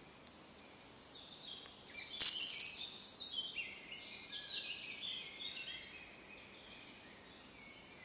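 Songbirds singing runs of short, high, stepping notes from about a second in until about six seconds in, with one brief loud rustle about two seconds in, over a faint steady outdoor background.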